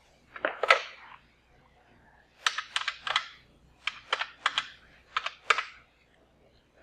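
Push-button desk telephone: the handset is lifted with a couple of knocks, then the keypad buttons are pressed in three quick runs of clicks as a number is dialled, about ten presses in all.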